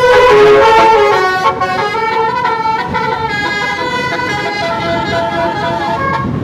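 Bus telolet horn playing a melody: a chord of air-horn notes stepping up and down in pitch, loudest in the first second.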